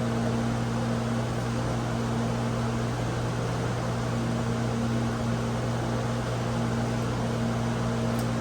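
Land Rover supercharged engine idling steadily, a constant hum under a rushing, fan-like noise, run to show where its coolant is leaking.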